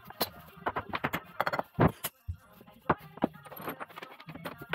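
Metal tools and parts of a truck air compressor clinking and knocking against each other during teardown: a dozen or so sharp clinks, the loudest knock just under two seconds in, with background music.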